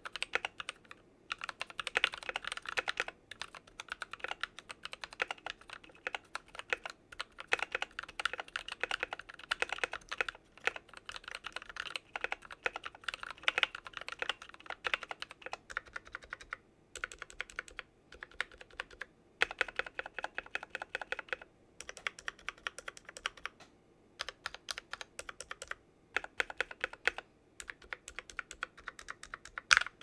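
Typing on a mechanical keyboard fitted with NovelKeys x Kailh Cream linear switches in a clear acrylic case: rapid runs of keystrokes, clacking as the keys bottom out, broken by short pauses of about a second.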